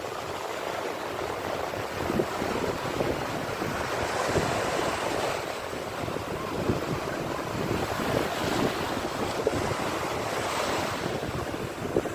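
Sea waves breaking on a shore: a continuous rush of surf that swells and eases every couple of seconds.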